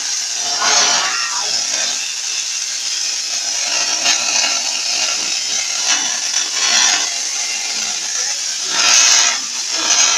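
Tesla coil firing, the blue streamer sparks off its aluminium-duct toroid making a continuous noisy crackling hiss that swells in several louder surges, the loudest near the end.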